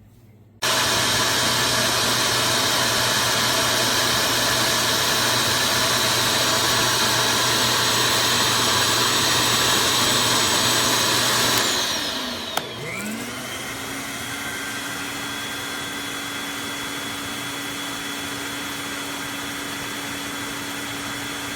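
Vacmaster VF408 wet/dry shop vacuum's two-stage motor switching on about half a second in and running with a steady rush of air. About twelve seconds in the sound drops and changes: a short whine glides in pitch and settles into a quieter, steadier hum.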